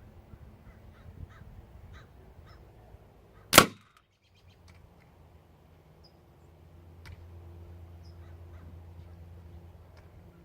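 A single sharp air gun shot about three and a half seconds in, the loudest sound here, with faint bird chirps around it.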